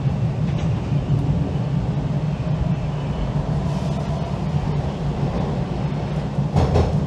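A TTC Line 2 subway train (Bombardier T1 cars) running as it pulls away from a station into the tunnel, heard from inside the car as a steady low rumble. A few sharp rail clacks come near the end.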